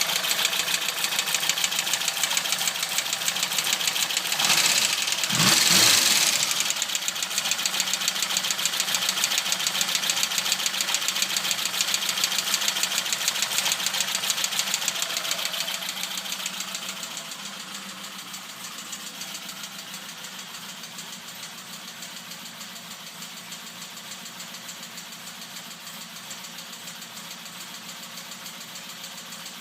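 Opel Kadett B's tuned 1.2 S OHV four-cylinder engine idling with a fast, steady ticking, which the owner takes to be the valvetrain despite the valves being set to 0.2 mm clearance. A brief louder swell comes about five seconds in, and the engine sounds quieter from about seventeen seconds in.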